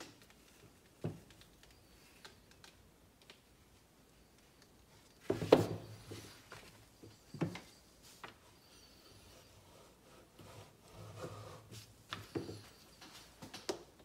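Scattered handling noises from a stretched canvas being tilted by gloved hands: soft rubs and a few knocks of its wooden frame on the table, the loudest about five and a half seconds in.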